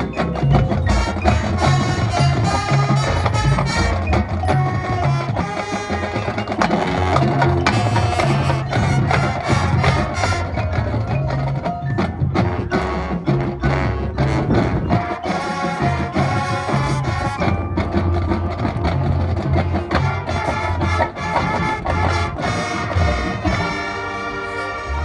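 High school marching band playing its field show: a busy passage of struck percussion notes over a low bass line, settling into a held low chord near the end.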